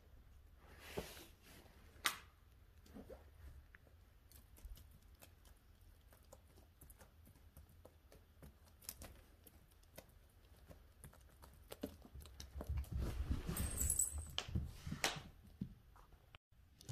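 Faint scattered taps and rustles of a cat playing with a feather wand toy on a rug, with a sharp tap about two seconds in. About three-quarters through comes a louder stretch of rustling and scuffing that lasts a few seconds.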